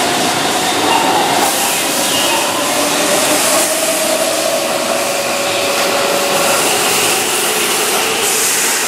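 Keihan 7000-series electric train (set 7002) moving along a station platform: rolling noise with a steady whine from its VVVF inverter motor drive.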